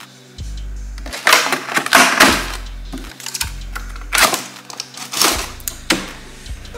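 Plastic packing wrap crinkling and cardboard boxes being handled in several rustling bursts, over background music with steady bass notes.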